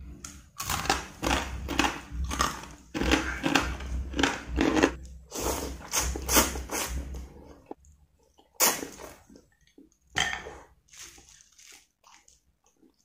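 Close-miked crunching and chewing of a crisp homemade rice cracker (kerupuk nasi), about two crunches a second, then instant noodles slurped in a few loud, separate pulls.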